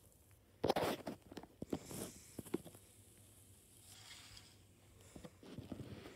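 Rustling and clicking handling noise close to the microphone, in an irregular cluster starting about half a second in and again near the end.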